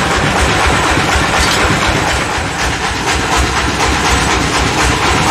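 Band sawmill machinery running steadily: a loud, continuous mechanical clatter and hum with a rapid low pulsing.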